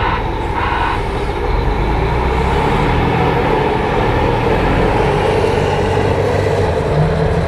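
Caterpillar 980K wheel loader's C13 six-cylinder diesel engine running as the machine moves. A beeping alarm stops about a second in.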